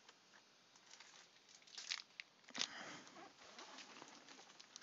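Faint crinkling and soft clicks of trading cards and foil pack wrappers being handled, loudest in a cluster about two to three seconds in.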